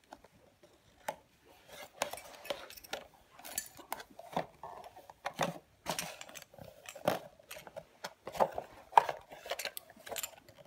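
Scallop shells (Pecten and Chlamys) clicking and clattering against each other as they are handled, sorted and set down, in irregular light clinks.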